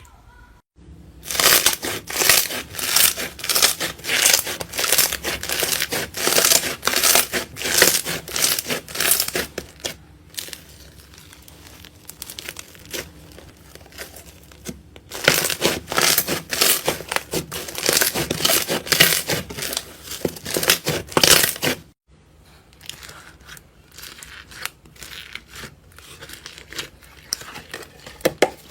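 Slime being pressed and squeezed by hand, giving crinkly, crackling pops in quick repeated presses, two or three a second. The presses come in two loud runs, with quieter, softer handling in between and near the end.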